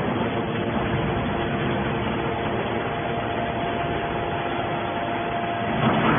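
Hydraulic scrap metal baler running: the steady noise of its motor and hydraulic pump, with a faint steady whine that fades out shortly before the end.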